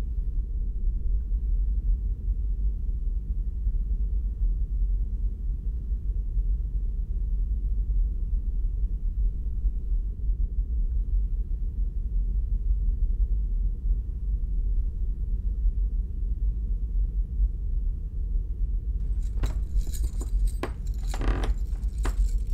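A steady low rumbling drone, with a burst of metallic jangling and high ringing in the last three seconds.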